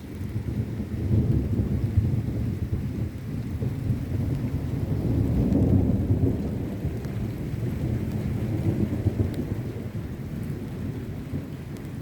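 Thunder rumbling over steady rain: a long, low roll that comes in suddenly, swells again about halfway through and slowly dies down, with the rain's hiss underneath.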